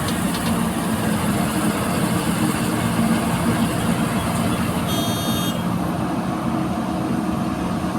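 Heavy diesel engine of a backhoe loader running steadily. A brief high whistle-like tone sounds about five seconds in.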